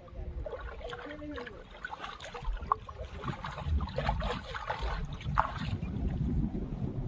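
Irregular splashing and sloshing of river water, with wind rumbling on the microphone.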